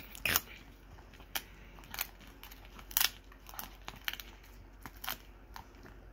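Pit bull chewing a dried pig ear: irregular crisp crunches and cracks, roughly one or two a second, the loudest near the start and about three seconds in.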